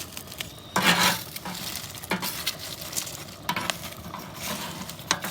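Wood fire crackling, with scrapes and clicks as foil-wrapped sweet potatoes are pushed into the embers; a louder rustling scrape about a second in.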